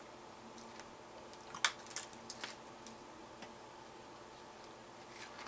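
A few faint, short crackles from a foil chip bag being dug into and chip crumbs being crunched, over quiet room tone; the sharpest crackle comes about a second and a half in, with a small cluster just after.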